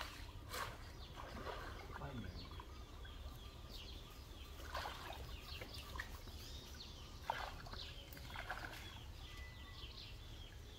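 Birds chirping over and over in short, downward-sliding calls, with a few sharp splashes of water from people working by hand in shallow muddy pond water.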